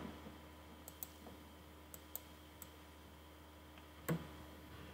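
Faint computer mouse clicks, about five sharp clicks in the first few seconds, then a louder soft thump about four seconds in, over a steady low hum.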